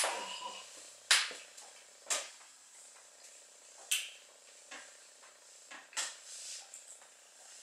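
A man chewing rotisserie chicken, with about five sharp wet smacks of the lips and mouth a second or two apart.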